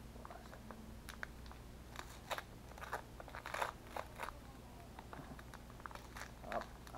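Gift-wrapping paper crinkling and tearing as it is picked and peeled off a small present by hand, in scattered crackles, the loudest about three and a half seconds in.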